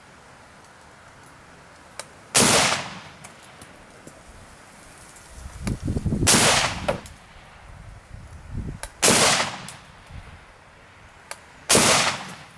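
Four single rifle shots from an AK-pattern rifle in 7.62×39mm, spaced about three seconds apart, each a sharp crack with a short echoing tail.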